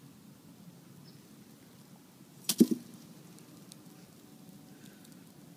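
A brief sharp knock, two or three quick strikes close together, about two and a half seconds in, over a faint quiet background.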